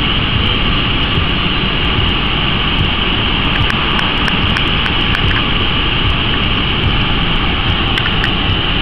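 Nissan Sentra idling in Park, heard from inside the cabin: a steady, even running noise with a high hiss on top.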